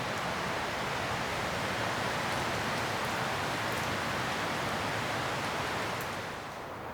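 A gust of wind rushing through pine trees, swelling up and then dying away near the end.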